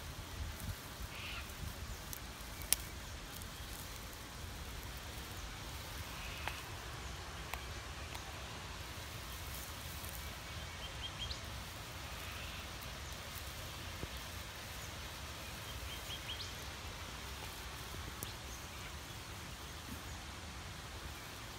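Quiet bush ambience: a steady low rumble with faint, short bird chirps a handful of times and a single sharp click about three seconds in.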